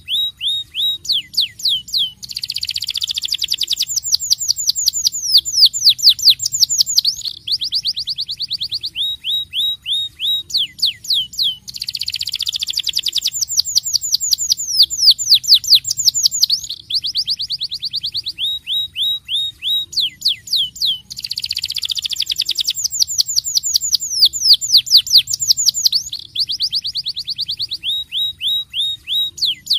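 Star Blue canary singing continuously in rolling trills: fast runs of sharp downward-sweeping notes alternating with dense buzzy trills, the same song sequence coming round about every ten seconds.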